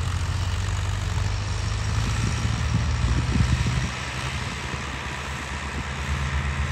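YTO tractor's diesel engine running steadily under load as it pulls a multi-tine cultivator through tilled soil, with a slight drop in level about four seconds in.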